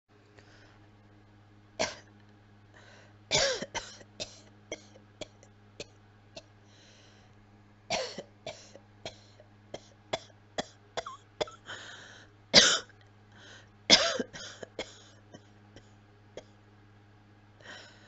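A person's dry cough, coughing again and again: some single coughs, some quick runs of several, from an illness. A steady low hum runs underneath.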